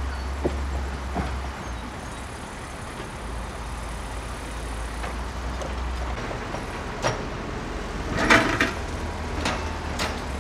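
Low, steady diesel rumble of heavy track machinery such as an excavator, with scattered sharp knocks and a short clatter about eight seconds in, the loudest sound, from work on broken concrete ties, rails and ballast.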